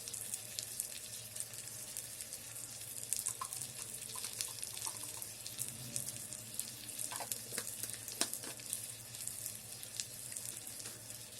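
Chopped vegetables frying in hot mustard oil in an electric kettle: a steady sizzle with fine crackling, and a few sharper clicks about seven to eight seconds in.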